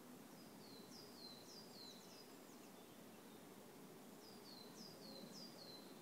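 A songbird singing faintly: two runs of quick, high-pitched, downward-slurred notes, about five in each, a second or two apart, over faint steady background noise.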